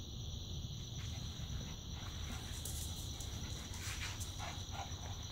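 A small Maltese–Shih Tzu cross's claws clicking on a tiled floor a few times as it moves about, mostly near the middle and toward the end, over a steady low hum.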